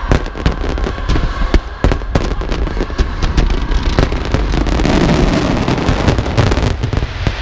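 Fireworks bursting in rapid, irregular succession: a dense string of sharp bangs and crackles, merging into a continuous crackle about two-thirds of the way in.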